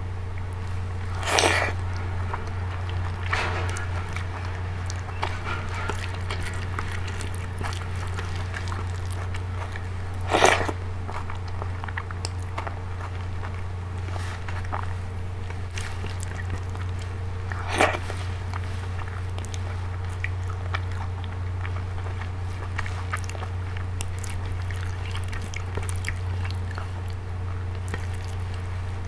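Close-miked eating: chewing and wet mouth sounds from rice and dal eaten by hand, with many faint clicks. Louder smacks come about a second and a half in, about ten seconds in and again around eighteen seconds, over a steady low hum.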